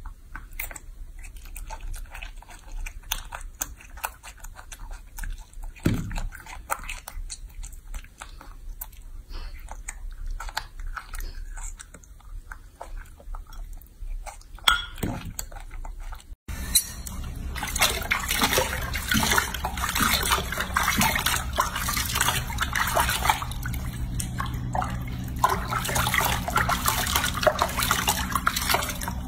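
A baby macaque chewing and biting small fruit, a scatter of small wet clicks and crunches. About sixteen seconds in it cuts to louder water splashing and sloshing in a sink basin as the baby monkey is washed by hand.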